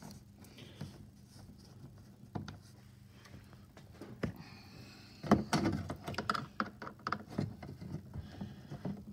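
Phillips screwdriver backing screws out of a 2021 Isuzu D-Max's plastic door trim panel: a couple of isolated clicks, then from about five seconds in an irregular run of sharp clicks and short scrapes of the tool and screw against the plastic.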